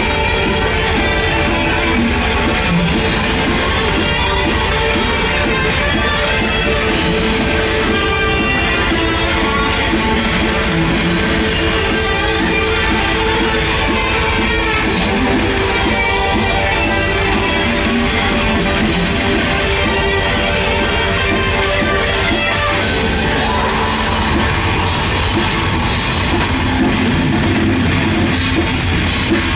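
A heavy metal band playing live and loud, with electric guitar to the fore over dense bass. The playing shifts to a different part about 23 seconds in.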